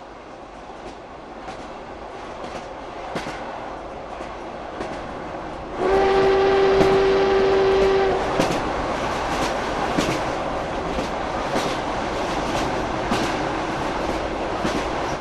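A train passing on the railway line: its rumble builds, the horn sounds one steady blast of about two seconds around six seconds in, and the wheels clatter over the rail joints until the sound cuts off suddenly.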